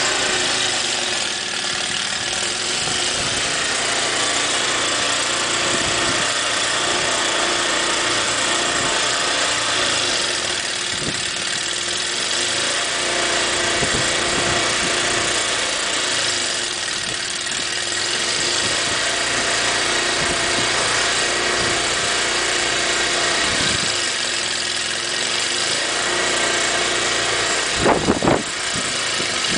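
Snow thrower's small engine running steadily while clearing heavy snow, with two sharp knocks close together near the end.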